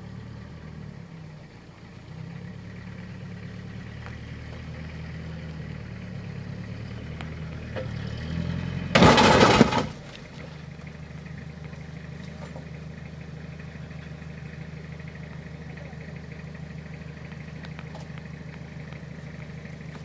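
Toyota Hilux pickup's engine running as the truck reverses slowly, its note rising and falling a little, then holding a steady idle from about ten seconds in. A loud burst of noise lasting under a second comes about nine seconds in.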